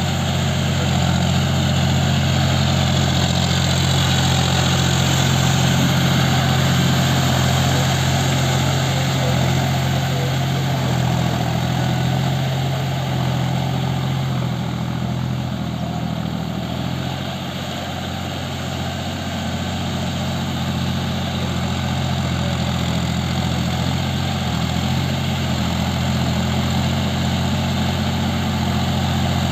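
Diesel tractor engine running steadily under load as it drives a rotary tiller through flooded paddy mud. It is briefly a little quieter just past the middle.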